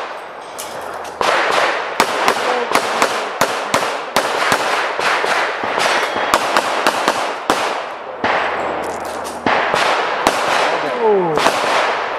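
Handgun fire: strings of sharp, loud shots, often two in quick succession, with short pauses about a second in and again around eight seconds in, as the shooter moves between firing positions.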